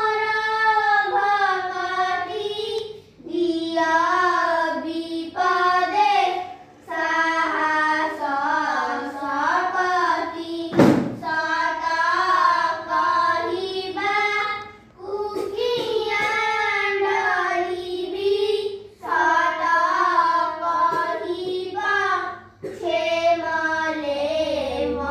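Children singing a devotional prayer, in sung phrases with short breaks between them. One sharp click comes about eleven seconds in.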